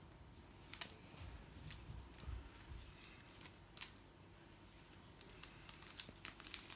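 Faint scattered clicks and soft taps of a kitten's paws and claws on a tiled floor and wall as it pounces and bats at a feather wand toy, the clicks coming more often near the end.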